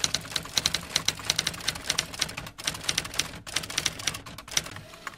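Typewriter sound effect: keys clacking in quick, uneven strokes, several a second, with a couple of short pauses.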